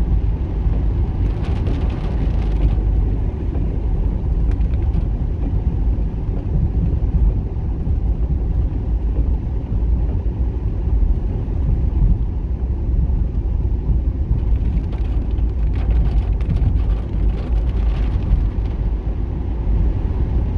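A car driving on a rain-soaked street: a steady low engine and road rumble, with spells of tyre hiss on the wet pavement about two seconds in and again from about fourteen to eighteen seconds in.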